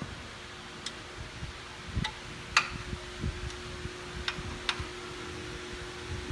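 Tools and machine parts being handled: scattered light clicks and knocks, the loudest about two and a half seconds in, over a steady hum. A faint steady tone comes in at that loudest knock and keeps going.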